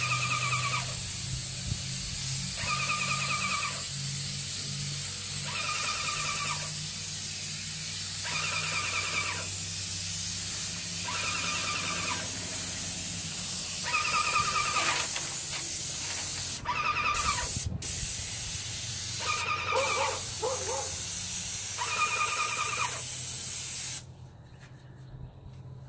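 Airless paint sprayer gun hissing steadily as it sprays paint, with a low hum underneath; the spray breaks off briefly around 17 seconds in and stops about 24 seconds in. A short trilling call repeats about every two and a half seconds alongside it.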